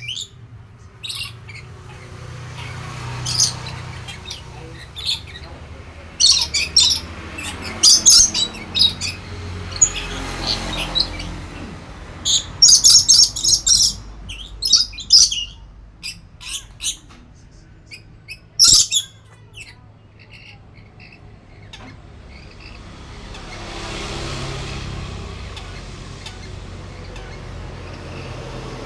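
Lory (nuri parrot) giving loud, shrill squawks in short clusters of rapid calls. The calls stop about two-thirds of the way through, leaving a soft rushing noise.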